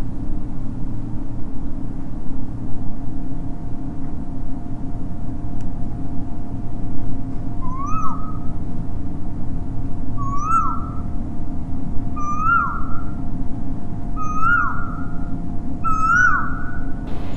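A short squeaky call that rises and then drops sharply in pitch, repeating about every two seconds from about eight seconds in and getting louder, over a steady low hum.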